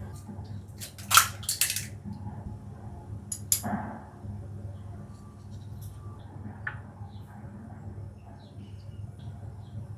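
Kitchen utensils and dishes being handled while baking: a cluster of clattering knocks about a second in, another sharp knock around three and a half seconds and a lighter tap near seven seconds, over a low steady hum.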